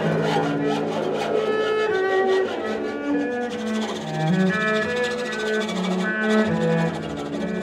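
Cello bowing sustained notes that shift in pitch, with a bass koto played alongside in an improvised duo.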